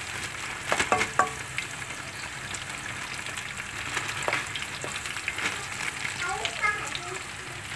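Hot oil in a frying pan sizzling steadily, with sharp crackles, as chicken nuggets are tipped in beside frying potato waffles.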